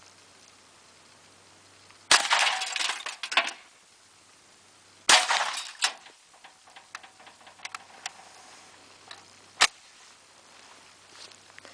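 Semi-automatic Thompson submachine gun firing .45 ACP: a quick string of shots about two seconds in, a second shorter string about three seconds later, and one more single shot near the end, each crack with a short echo. Faint clinks and ticks sound between the shots.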